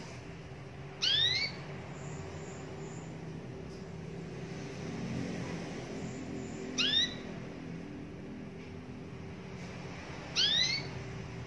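Local domestic canary giving a short rising call three times, several seconds apart, each a quick upward-sweeping note, over a faint steady hum.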